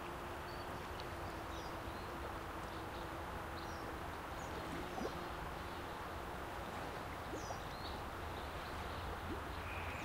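Outdoor ambience: a steady background hiss with a few short, faint bird chirps scattered through.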